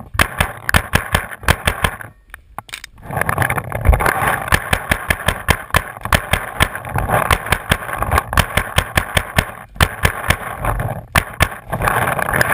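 Paintball markers firing rapid strings of shots, about five a second, with a short lull around two seconds in.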